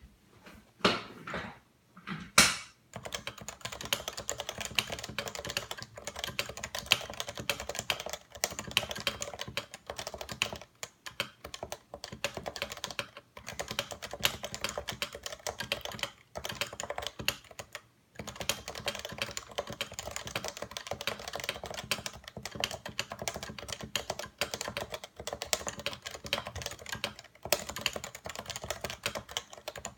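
Typing on a Realforce 87U keyboard with 55 g Topre electrostatic capacitive switches: a fast, continuous run of keystrokes with short pauses every few seconds, after a few separate louder knocks in the first couple of seconds.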